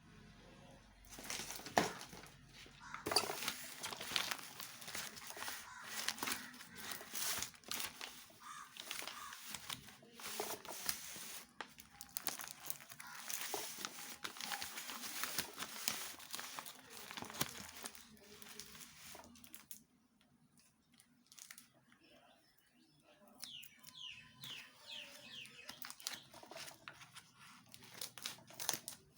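Toy kit packaging being handled and opened: irregular crinkling and tearing with many small clicks. The handling stops for a few seconds past the middle, then resumes with a few short high squeaks.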